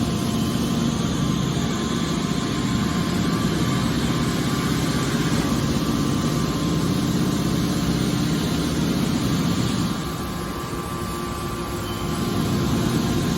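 Hydraulic scrap-aluminum baler running: a steady mechanical hum of its motor and pump, easing a little for a couple of seconds near the end.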